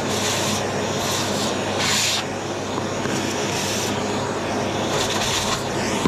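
Dyson vacuum cleaner running steadily, its small nozzle drawing dust out of the perforated filter cage of a Dyson hair tool. A rushing hiss swells and fades several times as the nozzle moves over the mesh.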